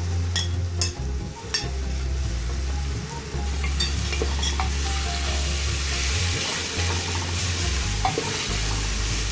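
Sliced onions sizzling in hot coconut oil in a pressure cooker as they are stirred and sautéed with salt. The stirring spoon clicks against the pot in the first couple of seconds, and the frying hiss grows denser from about three and a half seconds in.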